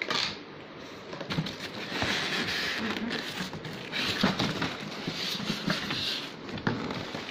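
Clear plastic bag crinkling and polystyrene foam end caps rubbing against a cardboard box as a packed printer is handled and lifted out, rustling in several waves from about two seconds in, with scattered small clicks and knocks.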